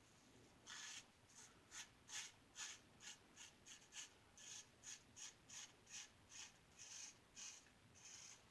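Star single-edge safety razor with a GEM blade scraping stubble through lather in short, quick strokes, about two to three a second, starting about a second in. The strokes are faint and scratchy.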